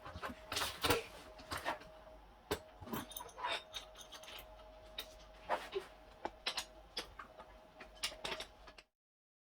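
Irregular light clicks and taps of small metal fittings and a hand tool while a part is fastened onto a kids' bicycle, over a faint steady hum. The sound cuts off abruptly near the end.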